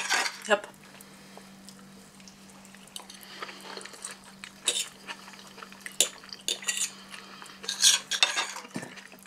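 Knife and fork clinking and scraping on a glass dinner plate as chicken is cut, with a handful of sharp clinks scattered through and a cluster near the end. A faint steady hum runs underneath.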